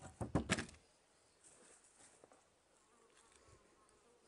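Potatoes set down on a wooden table: a quick cluster of knocks in the first second, followed by faint buzzing.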